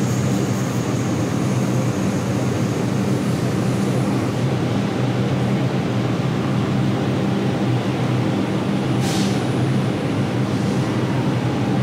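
Steady drone of an R142 subway car standing at a station, its running equipment humming low and even, with a brief hiss about nine seconds in.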